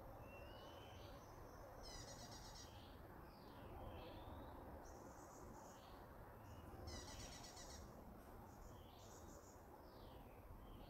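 Faint birdsong: short whistled notes that slide in pitch, with about four brief rapid trills, over a soft steady background noise.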